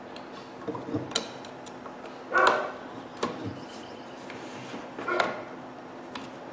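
Scattered light clicks and knocks from a screwdriver working the rear screw out of a Dewalt angle grinder's plastic housing, with two brief louder sounds about two and a half and five seconds in.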